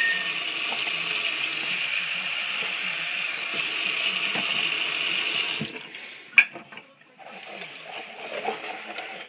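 Kitchen faucet running a steady stream of water into a plastic gold pan, shut off suddenly about five and a half seconds in. A sharp knock follows, then quieter water moving in the pan.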